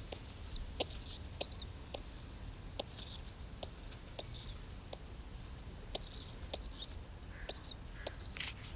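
Baby pigeon (squab) giving a string of high, thin squeaky peeps, about a dozen, irregularly spaced, some bending up or down in pitch.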